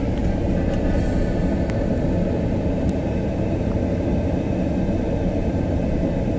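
Steady low rumble of road and engine noise heard inside the cabin of a car driving slowly along a street.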